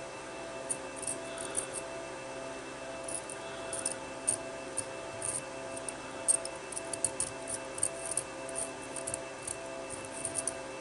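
Metal tweezers picking and scraping at the magnet of a DVD player's disc-spindle motor, removing stuck metal shavings: a scatter of small sharp ticks and scratches that come thicker from a few seconds in. A steady faint hum runs underneath.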